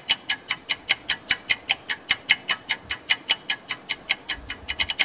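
Clock-like ticking sound effect of a quiz countdown timer: a rapid, even run of sharp ticks, several a second.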